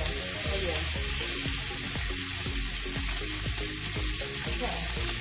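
Steak sizzling steadily as it sears in a hot pan.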